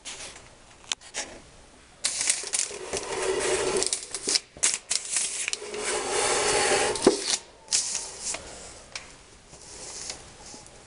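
Rustling and scraping handling noise with many sharp clicks, starting about two seconds in and fading after about seven seconds, with a few lone clicks later.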